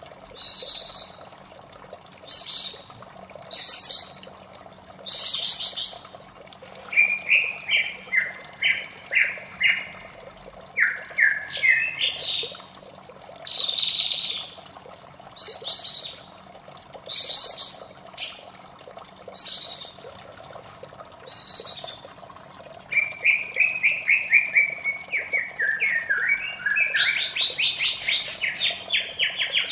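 White-rumped shama singing: a run of short, loud, varied phrases coming every second or two, some sharp high notes and some descending stepped trills, with a longer rapid trill near the end. Underneath is a steady rush of flowing water.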